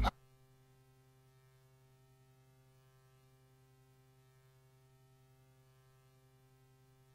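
Music playback cuts off at the very start, leaving near silence with a faint, steady electrical mains hum from the studio's audio gear.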